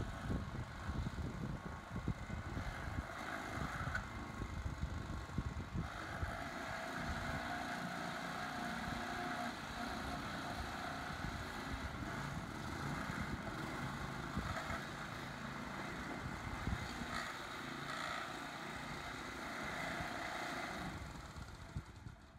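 Powered walk-behind aircraft tug running steadily as it pushes a light plane backward into a hangar, with uneven low rumbling throughout; the motor sound drops away about a second before the end as the plane comes to rest.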